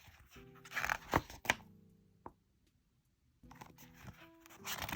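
Glossy photobook pages being turned and handled, with papery rustles and sharp little clicks in two bursts and a lull between them. Faint music with held notes plays underneath.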